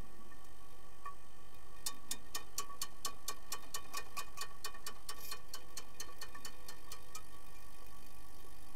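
A fast, evenly spaced run of sharp clicks heard through water, about six a second, starting about two seconds in and stopping about seven seconds in, over a faint steady hum.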